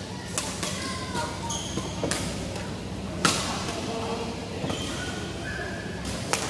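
Badminton doubles rally: rackets striking the shuttlecock with sharp cracks, four hits, the loudest about three seconds in, with brief squeaks between them.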